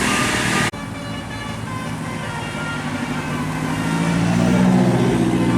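A bus's engine on the road, getting louder as it comes closer over the last couple of seconds, over steady traffic noise. The sound cuts off abruptly under a second in and picks up again.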